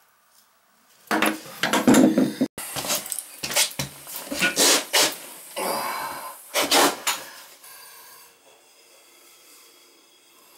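An old glazed china toilet being rocked and lifted off its floor flange: a run of scraping, knocking and clattering from about a second in until around seven seconds, then much quieter.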